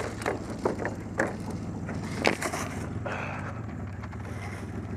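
Pickup truck engine running steadily, with several sharp clicks and knocks in the first couple of seconds, the loudest one a little past two seconds in.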